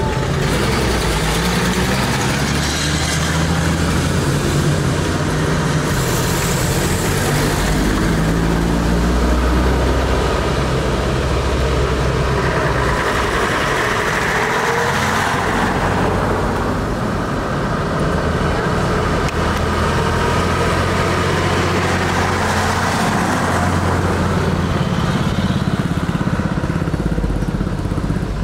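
Engines of WW2-era military vehicles in a convoy driving past one after another, their engine notes rising and falling as each goes by.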